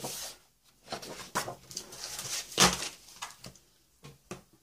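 Sheets of patterned A4 paper rustling as they are handled and moved aside, in a string of short rustles with one louder one about two and a half seconds in.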